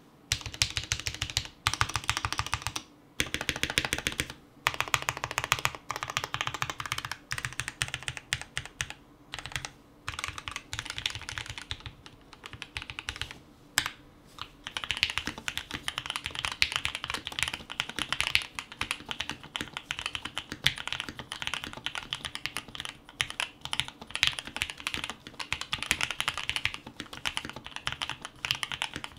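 Fast typing on a Nova65 mechanical keyboard with Gateron Yellow KS3 linear switches: a dense run of key strokes, with a few short pauses and a sparser stretch about halfway through.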